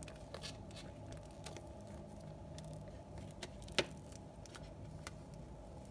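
An epoxy resin coaster being worked out of a flexible silicone mold: scattered soft clicks and crinkles of handling, with one sharper click a little less than four seconds in.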